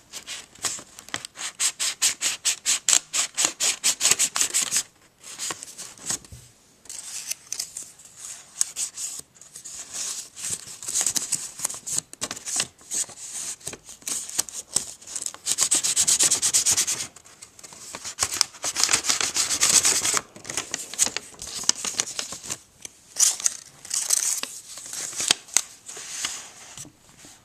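A sheet of origami paper being folded and creased by hand. It opens with a fast, even run of rubbing strokes along a crease for about five seconds. Irregular paper rustling and rubbing follow, with longer steady rubs about halfway through.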